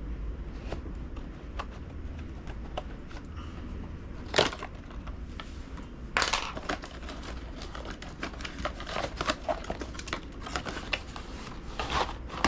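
Tire packaging being opened and handled by hand: scattered crinkles, scrapes and clicks, with louder rustling bursts about four seconds in, about six seconds in and near the end.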